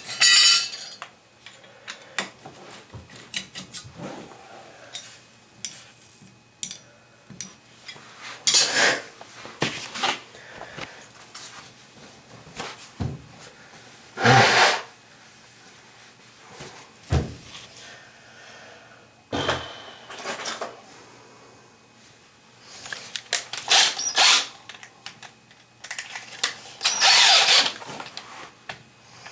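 Power drill run in short bursts of about a second, six or seven times with pauses between, some bursts carrying a motor whine.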